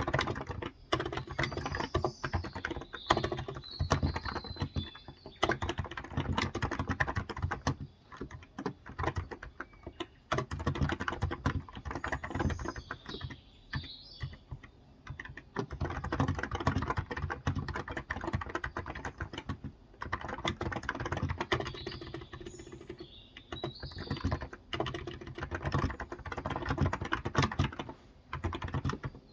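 Steady fast typing on a Cox Endeavour tenkeyless keyboard with 35 g electrostatic capacitive switches: runs of soft, muted key clicks broken by short pauses. Birds chirp in the background three times.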